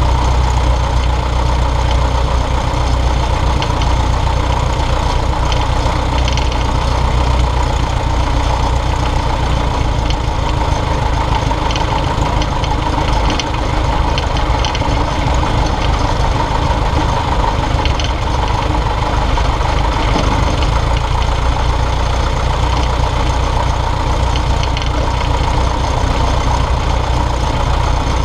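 Piper Cub light aircraft's piston engine and propeller running steadily at taxi power, heard from a camera mounted on the airframe.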